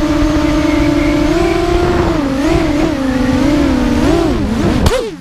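Racing quadcopter's brushless motors (DYS MT2206 2300kv) and 5045 props whining loudly, as heard from the onboard camera, the pitch rising and falling with each throttle change. Near the end there is a sharp knock and the pitch drops away as the motors spin down.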